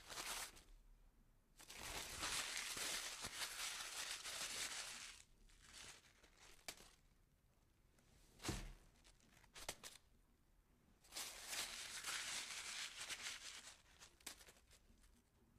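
Paper being crumpled: bursts of crinkling and crackling, the longest about three seconds, with quieter gaps between them holding scattered single crackles.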